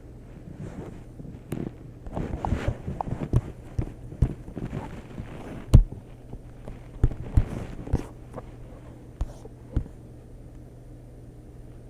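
Irregular light taps and knocks, a few sharper than the rest, over a low steady hum.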